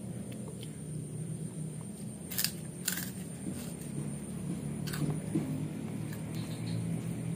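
A child biting and chewing a puffy kerupuk cracker: three sharp crunches, two close together about two and a half seconds in and one about five seconds in, over a steady low background hum.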